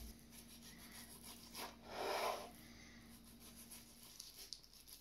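Kitchen knife cutting through raw bacon rashers on a wooden chopping board: faint repeated strokes of the blade against the board, with one louder rubbing sound about two seconds in.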